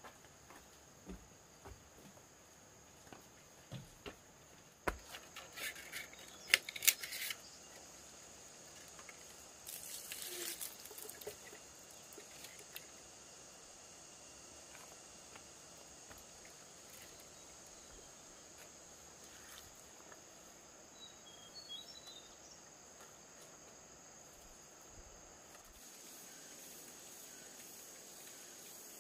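A steady high insect drone runs throughout. Several sharp clicks and knocks come about five to seven seconds in, and a brief rustle follows about ten seconds in.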